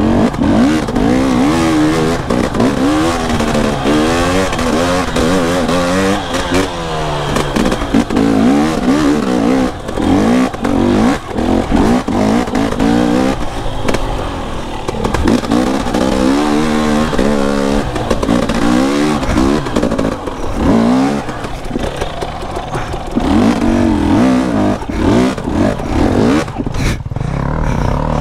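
KTM enduro dirt bike engine revving up and down over and over as the bike is ridden along rough single track, with frequent short knocks and clatter from the bike over the ground. Near the end the engine drops to a lower, steadier note.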